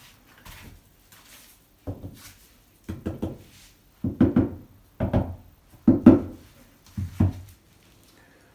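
Dull knocks from a ceramic floor tile being tapped down into notched tile adhesive to bed it. There are about six groups of knocks roughly a second apart, some of them several quick taps.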